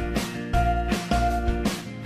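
Background music: an upbeat instrumental with a steady beat, a bass line and plucked notes that change about twice a second.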